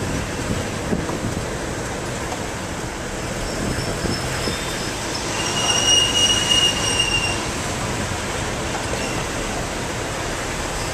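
Street noise with a steady traffic hiss, and a shrill squeal lasting about a second and a half near the middle.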